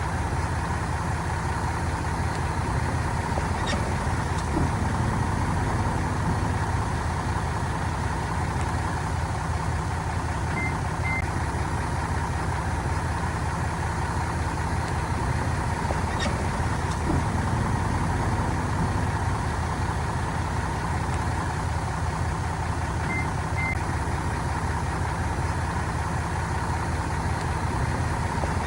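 Diesel engine of heavy earthmoving equipment running steadily at a constant pace. About every twelve seconds there is a faint click and a pair of short high beeps.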